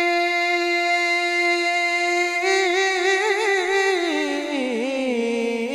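A male voice singing an Urdu naat holds one long steady note. About two and a half seconds in it breaks into a wavering, ornamented run that slides down in pitch.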